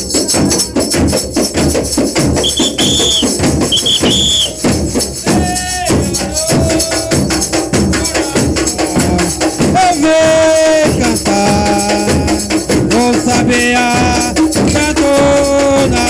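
Bumba-meu-boi band playing a steady, driving rhythm on large frame drums (pandeirões) and drums, with accordion. Two short high piping tones sound a few seconds in, and held melody notes come in over the drums in the second half.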